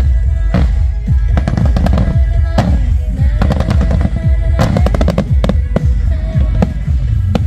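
Fireworks going off in quick runs of pops and crackles over loud music with a heavy bass.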